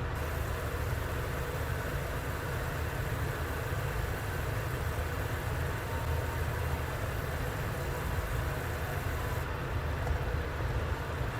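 A steady low rumble with a fainter hiss above it, unchanging throughout.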